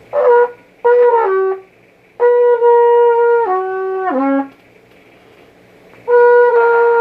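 Solo trumpet playing short phrases: a brief note, then three phrases that each hold a note and step down in pitch, with pauses between them.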